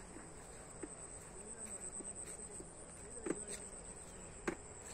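Insects chirring steadily at one high, even pitch, with two sharp clicks about three and four and a half seconds in.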